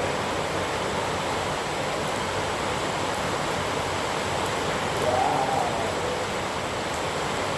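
Rain falling steadily: a dense, even hiss, with a faint voice briefly about five seconds in.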